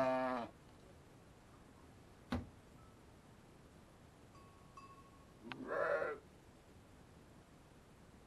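Sheep bleating: a low, steady bleat that stops about half a second in, then a second, rougher bleat about six seconds in. A single sharp knock about two seconds in.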